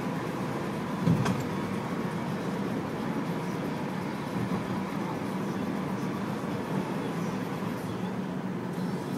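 Steady road and engine noise inside a moving car's cabin, with one short knock about a second in.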